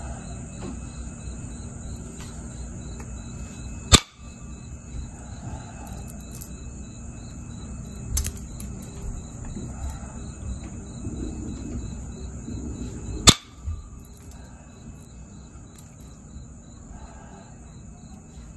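Copper-tipped pressure flaker pressing flakes off the edge of a jasper preform: sharp snaps as flakes pop off, a loud one about four seconds in and another about thirteen seconds in, with a fainter one near eight seconds.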